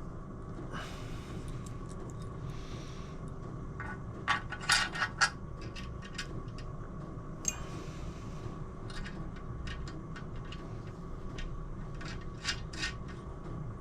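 Small metal clicks and scraping as a bolt is worked through a sticky, fouled thread in a powder-coated Royal Enfield crankcase. A quick cluster of sharp clicks comes about four to five seconds in, and a few more near the end.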